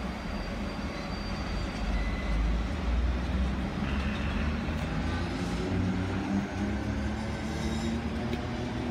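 Sydney's vintage electric suburban train running away along the track, a steady low rumble of wheels and running gear with a faint hum.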